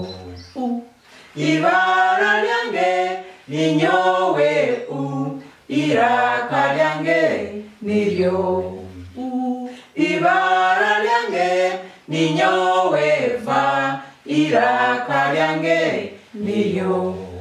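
A small group of adults singing unaccompanied a Runyoro-Rutoro letter-sound song, chanting the alphabet in repeated phrases of about two seconds with short breaks between them.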